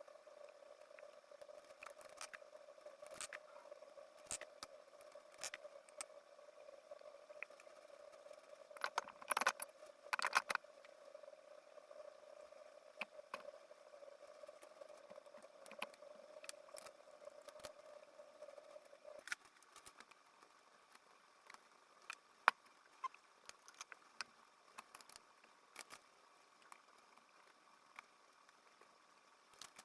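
Faint scattered clicks and metallic clinks of hand tools and engine parts being handled as a crankshaft is set into the crankcase, over a faint steady hum that stops about two-thirds of the way through.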